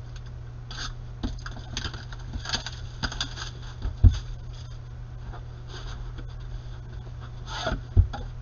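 Clear plastic shrink wrap being torn and peeled off a cardboard trading-card box, crinkling in short bursts. Two heavier knocks, about four seconds in and near the end, come from the box knocking on the table.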